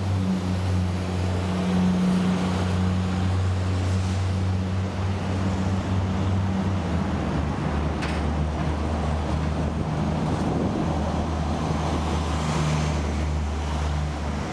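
City street traffic with buses running, a steady low engine hum under it, and cars passing. The hum shifts slightly in pitch about halfway through.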